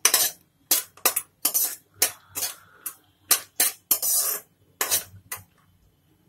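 Metal spoon scraping and clinking against a kadhai as cashews roasting in ghee are stirred: about a dozen quick strokes, stopping about five and a half seconds in.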